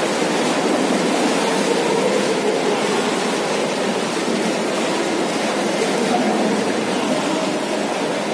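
Steady wash of splashing water echoing in an indoor swimming pool hall, with water being poured over a head at the poolside.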